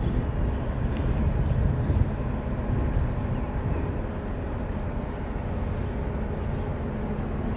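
Steady low engine rumble with a faint hum, easing slightly partway through.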